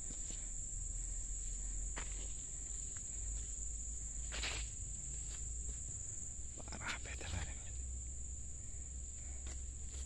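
Steady, high-pitched insect chorus over a low rumble, with a few footsteps on a dirt track.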